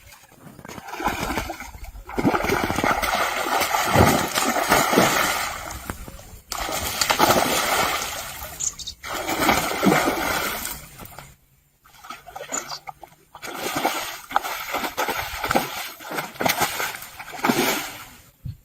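Water splashing and sloshing in several short bursts with abrupt breaks between them, typical of hands or a fish thrashing in shallow water.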